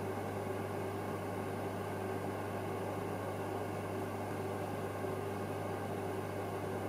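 Steady low electrical hum with a fainter higher tone and an even hiss, from running aquarium equipment such as a pump.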